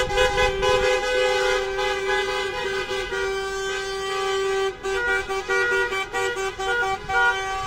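Car horns honking together in a protest honk-in, with passing cars. For the first four or five seconds a horn is held steadily, then it breaks into short repeated toots.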